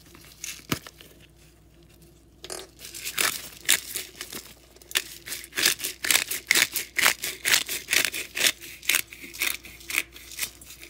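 Pepper mill grinding black pepper: a fast run of crunchy clicks that starts about two and a half seconds in, after a single click.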